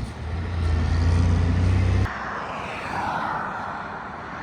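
Heavy truck's diesel engine rumbling close by, then stopping suddenly about two seconds in, leaving steady road traffic noise.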